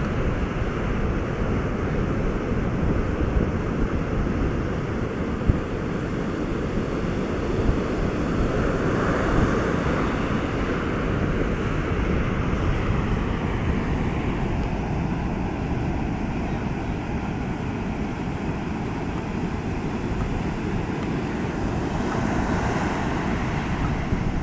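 Atlantic surf breaking and washing up a sandy beach at spring-tide high water, a steady rushing roar, with wind buffeting the microphone and a few brief thumps.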